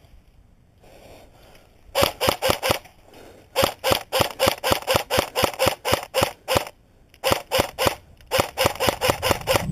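CYMA blowback AK47 airsoft electric gun firing four strings of rapid shots, about six a second, each shot a sharp clack.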